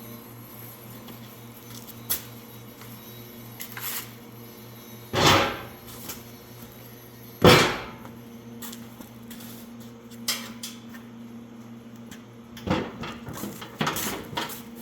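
Metal clunks and knocks as the battery and sheet-metal side door of a Bobcat 310 mini skid steer are fitted and closed. The two loudest clunks come a couple of seconds apart near the middle, with a quicker run of knocks near the end. A steady low hum runs underneath.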